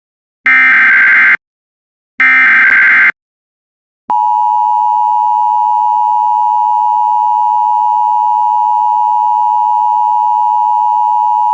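Emergency Alert System SAME header: two short bursts of screechy digital data code, the coded message that opens a warning. After a pause of about a second, the long steady EAS attention tone starts about four seconds in.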